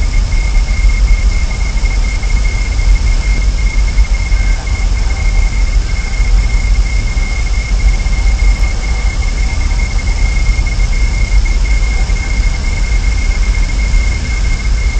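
Steady hiss and a fluctuating low rumble from an outdoor nest-camera microphone, with a constant high-pitched whine running through it. No eagle calls or other distinct events stand out.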